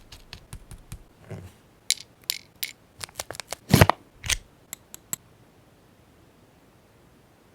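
Scissors snipping paper: a run of short, sharp snips and clicks over about five seconds, with one heavier thump about four seconds in.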